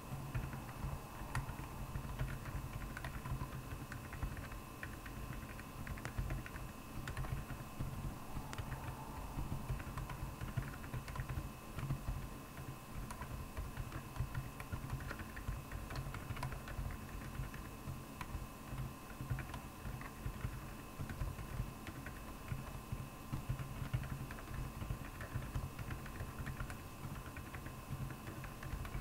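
Royal Kludge R75 mechanical keyboard with Akko Penguin silent tactile switches being typed on continuously: a fast, irregular run of dampened keystrokes, over a faint steady hum.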